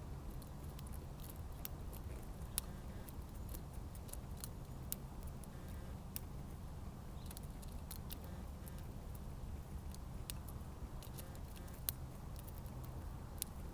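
Scattered, irregular light clicks and taps of birds pecking and cracking seed at a backyard feeder, over a steady low rumble.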